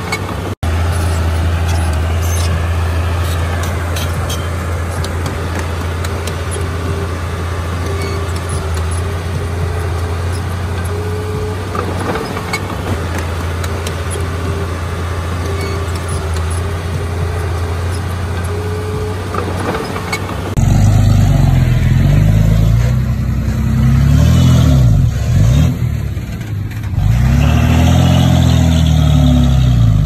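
Komatsu D31P bulldozer's diesel engine running steadily, with scattered clanks. About two-thirds of the way through the sound cuts abruptly to the engine revving, its pitch rising and falling several times.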